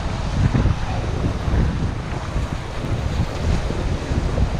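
Wind buffeting the microphone in uneven gusts, with surf washing on a shingle shore underneath.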